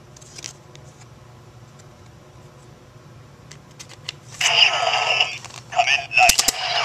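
Small plastic clicks as a rider card is handled and slid into the slot of a DX Decadriver toy belt. About four and a half seconds in, the belt's small speaker plays its electronic voice call and sound effects, with a sharp plastic clack near the end as the belt is closed and it calls up the Faiz form.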